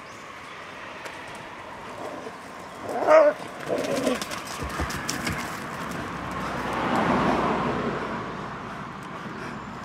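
Borzois playing: one dog gives a sharp bark about three seconds in, then a shorter one, followed by a longer stretch of scuffling noise as the dogs tussle.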